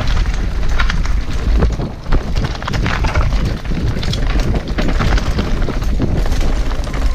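Mountain bike riding fast down a rough forest trail, heard from a camera on the rider: loud, steady wind buffeting on the microphone and tyre noise, with frequent clicks and rattles from the bike jolting over stones and roots.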